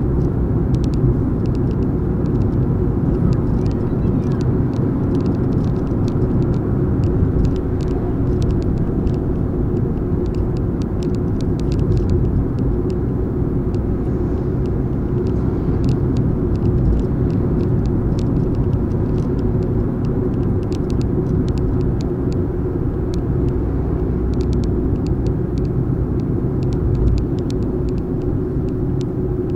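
Fiat 500 TwinAir's 875 cc two-cylinder turbo engine running at a steady cruise, heard from inside the cabin, under a steady rumble of road and tyre noise, with scattered small clicks throughout.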